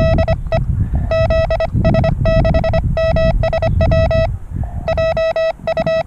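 Morse code (CW) from a portable ham radio transceiver's speaker: a buzzy, steady-pitched tone keyed in rapid dots and dashes, with short pauses between groups. Low rumbling noise lies underneath and eases off after about four and a half seconds.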